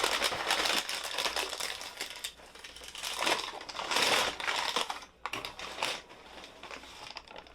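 Bag of tortilla chips being opened and handled: rapid crinkling and crackling, loudest about three to four seconds in.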